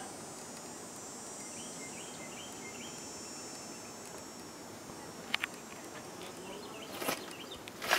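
Insects trilling in a steady high-pitched buzz that fades out around halfway, with a few faint chirps, over a steady outdoor hiss. Several sharp clicks come near the end.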